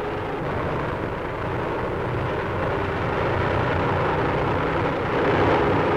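Airship engines droning steadily overhead through old film-soundtrack hiss, slowly growing louder.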